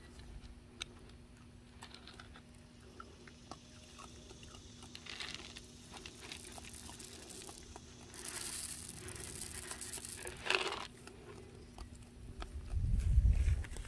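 Dry pet-food kibble being poured out of a plastic container onto the dirt: a rustling, pattering spill lasting about two seconds and ending in a sharp rattle, with small scattered clicks before it and a low rumble near the end.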